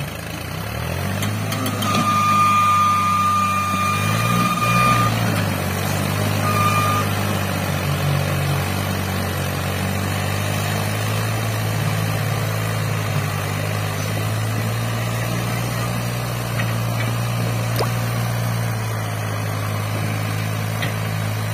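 New Holland 3630 tractor's three-cylinder diesel engine labouring steadily under a very heavy pull, hauling two loaded sugarcane trolleys hard enough to lift the tractor's front wheels off the ground; its pitch rises about a second in. A high steady tone sounds for about three seconds near the start and again briefly a little later.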